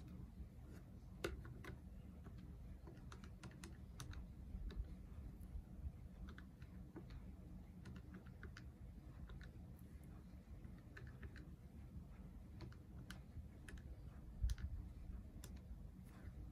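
Faint, irregular clicks of plastic keys being pressed on a Canon scientific calculator as a calculation is keyed in, over a steady low hum, with a soft thump near the end.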